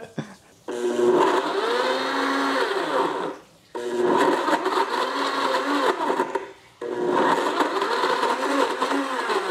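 Electric blender running in three bursts of about three seconds each, blending avocado salsa; it starts about a second in, with two short breaks between runs.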